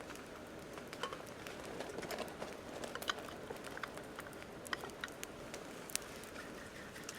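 Wood campfire crackling: irregular sharp pops over a steady low hiss, with the loudest pops about three seconds and six seconds in.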